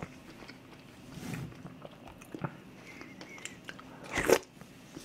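Close-up eating sounds: soft chewing and small wet mouth clicks, then a louder, short slurp about four seconds in as kimchi stew broth is sipped from a spoon.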